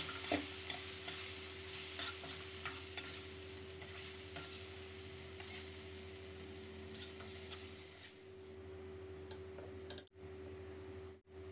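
Stir-fry sizzling in a steel wok, with a metal spatula scraping and clicking against the pan as tofu, minced pork and chilli are tossed. The sizzle dies away about eight seconds in, leaving a faint steady hum.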